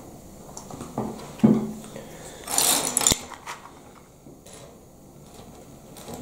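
Plastic Lego pieces knocking and clicking on a wooden table as they are handled and set down: a few knocks in the first two seconds, the loudest about a second and a half in, then a brief rustle ending in a sharp click about three seconds in.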